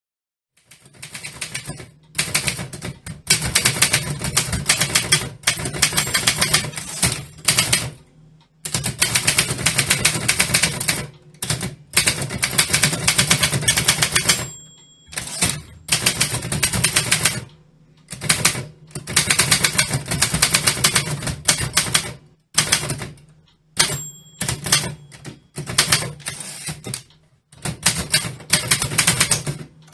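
Vintage typewriter being typed on in fast runs of key strikes with short pauses between lines. The margin bell rings about halfway through and again a little later.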